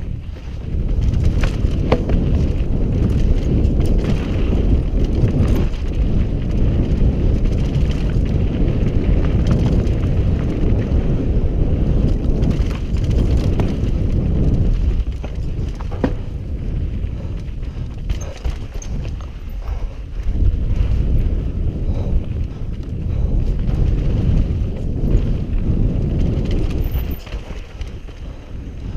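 Mountain bike descending a steep, sandy, rutted dirt trail at speed: a steady rumble of the tyres on the dirt, with many sharp clicks and knocks as the bike rattles over ruts and rocks.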